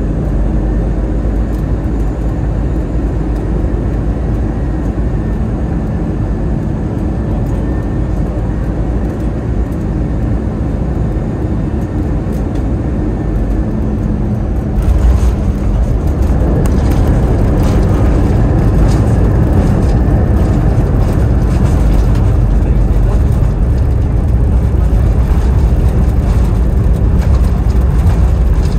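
Airbus A320 cabin noise on final approach, a steady rumble with a low hum. About halfway through it turns suddenly louder and rougher, with jolts and knocks, as the main wheels touch down on the runway and the engines go to reverse thrust, and the rollout rumble stays loud to the end.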